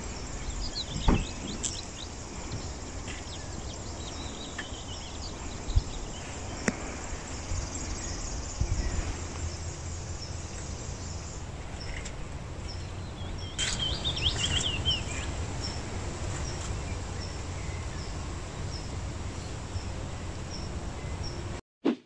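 Outdoor field ambience: birds chirping in short curving calls, and a short high call repeating about once a second through the second half, over a steady low rumble with a few bumps. The sound cuts off just before the end.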